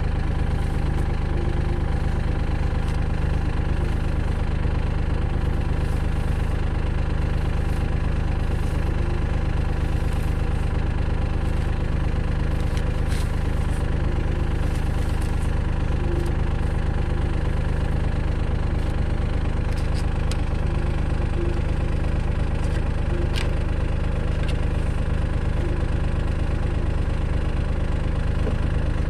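Kubota tractor's diesel engine idling steadily, with the rotary tiller stopped.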